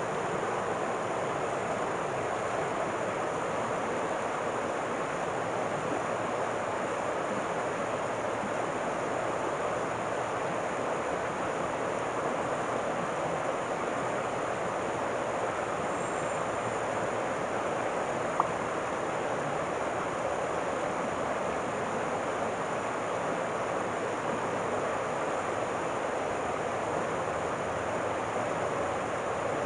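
River water flowing steadily, an even rush with no change, broken once by a brief click about two-thirds of the way through.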